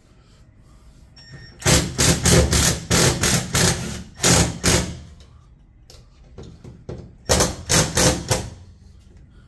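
Two runs of loud, quick knocks, about three a second: roughly nine strikes, a pause of a couple of seconds, then four more. The knocks come from tool work on a door closer being fitted to a door.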